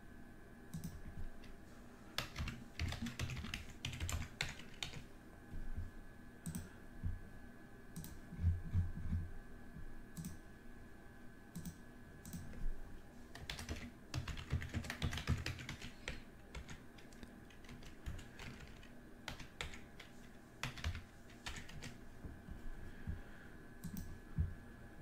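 Typing on a computer keyboard: irregular key clicks with two dense flurries, about two seconds in and again around the middle, over a faint steady whine.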